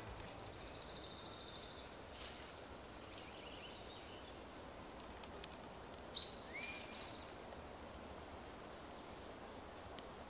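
Small birds singing: a rapid high trill at the start, a short upward call about six seconds in, and a rising series of thin notes near the end, over a faint steady hiss.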